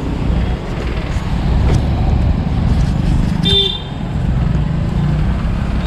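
Steady low rumble of vehicle engines and road traffic, with one short horn toot about three and a half seconds in.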